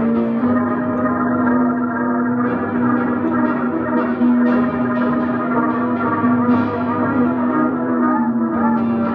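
Double bass bowed, holding one steady low drone with many ringing overtones layered above it and a few small sliding tones near the end.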